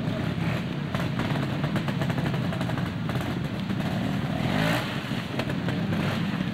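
Trials motorcycle engine running at low revs with quick throttle blips as the bike picks its way over rocks, rising in a short rev about two-thirds of the way through.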